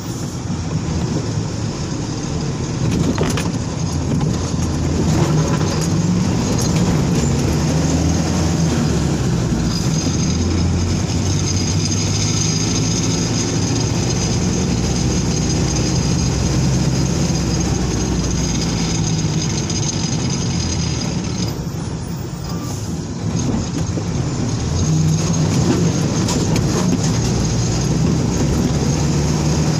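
Truck engine heard from inside the cab while driving slowly on a rough, potholed hill road, its pitch rising and falling with the throttle. A few knocks from the bumpy road come through early on.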